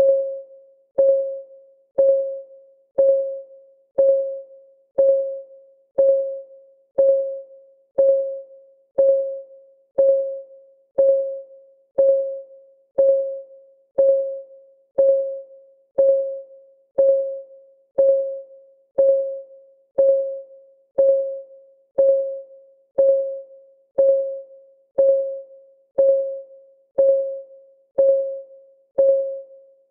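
Countdown timer's clock-ticking sound: one short, pitched tick every second, each ringing briefly and dying away.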